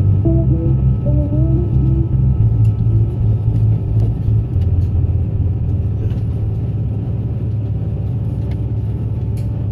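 Steady low rumble of a moving vehicle heard from inside its cabin. During the first two seconds the end of a brass tune fades out over it.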